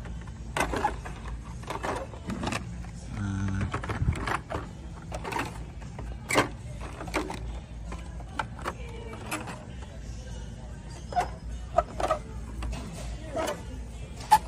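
Plastic-and-cardboard blister packs of die-cast toy cars clacking and rattling as they are handled and pulled off metal store pegs, in irregular sharp clicks over a steady low store hum.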